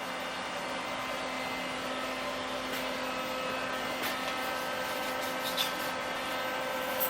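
Steady electric motor hum with a few light clicks over it, while a freshly milled part is taken out, cleaned and deburred.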